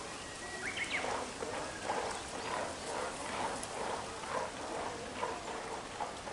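A pair of black storks making a rhythmic run of short calls, about three a second.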